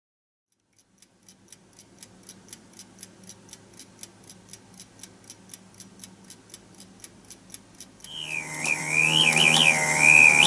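Ticking of a 1950s bird alarm clock, about four ticks a second. About eight seconds in, its bird alarm starts: a loud, warbling whistle that wavers up and down in pitch.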